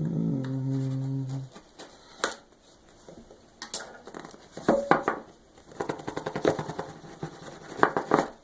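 A low steady hum for about a second and a half, then a cardboard phone box being handled and opened: scattered sharp clicks, taps and light rustling.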